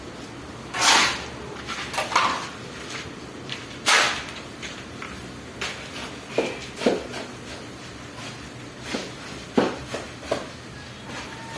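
Masonry work on concrete hollow blocks: irregular scrapes and knocks from a trowel and the blocks. The two strongest, sharp scrapes come about a second in and about four seconds in, with lighter taps between and after.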